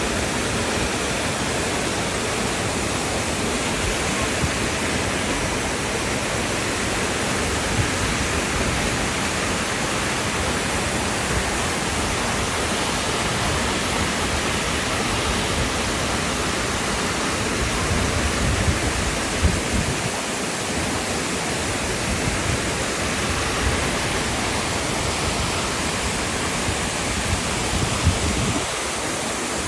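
Steady rush of fast-flowing water, like a waterfall or mountain stream, an even hiss with no breaks. A few brief low bumps come through about eighteen to twenty seconds in and again near the end.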